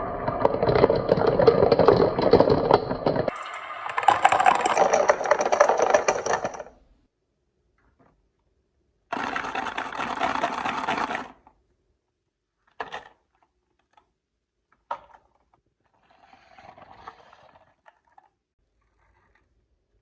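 Marbles rolling and clattering along a marble run: a dense rattle for the first several seconds, a pause, a second two-second burst of rolling, then a few single sharp clicks and a faint patter near the end.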